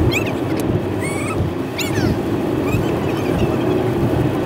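Car driving noise played back at four times speed: a steady rumble with quick high squeaky chirps every second or so.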